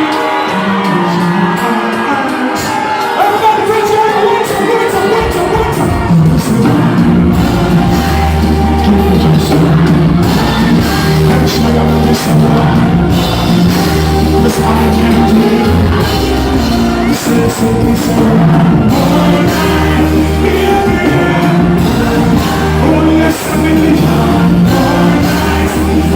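Loud live concert music over a PA, with singing and crowd shouts and whoops. A heavy bass line comes in about five seconds in.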